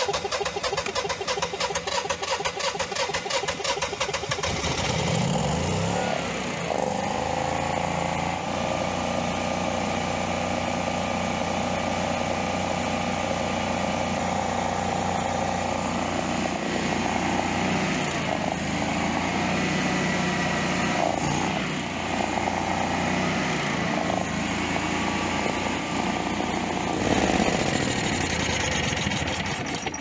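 Honeywell (Generac-built) home standby generator engine started in manual mode. It cranks with a fast, even beat for about four seconds, catches and rises in pitch, then runs steadily at governed speed with a few brief wavers in pitch.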